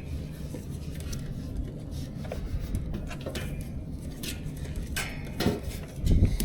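Light metallic clinks and knocks of metal parts being handled over a steady low hum, with a heavier thump near the end.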